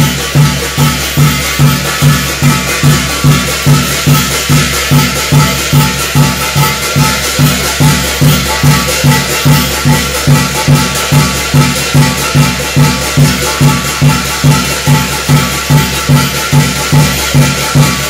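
Korean shamanic gut ritual music: a drum beating a steady rhythm of about two and a half strokes a second, with continuous metallic jingling of shaman's brass bells over it.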